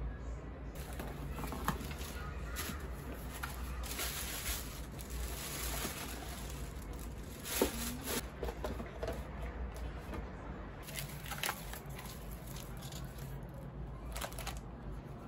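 Hands unpacking gift boxes: rustling tissue paper and cardboard packaging, with a few small knocks as boxes and items are handled and set down, over a steady low hum.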